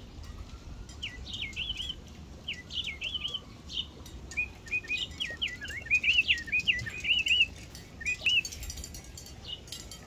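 Toy songbird chirping: runs of quick, high, sweeping chirps in several bursts, thickest and loudest a little past the middle.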